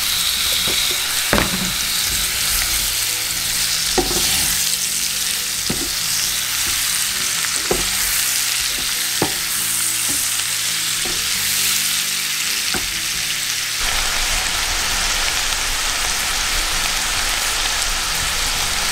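Brussels sprouts and bacon sizzling steadily in hot bacon grease in a frying pan, stirred with a wooden spoon that now and then taps sharply against the pan.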